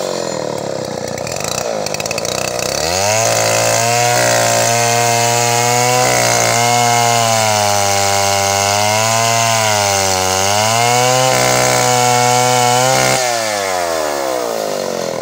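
Chainsaw engine running at low speed, then revved up to full throttle about three seconds in. It holds there with a slightly wavering pitch for some ten seconds before dropping back toward idle near the end.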